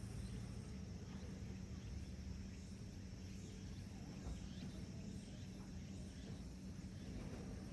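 Faint outdoor background noise with a steady low hum.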